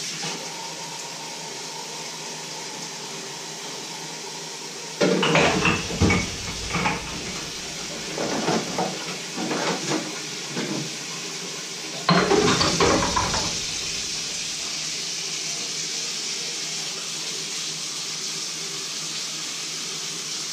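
Kitchen tap running steadily into a stainless steel sink while dishes are washed, with pots, dishes and cutlery clattering in the sink in two spells, about five seconds in and again about twelve seconds in.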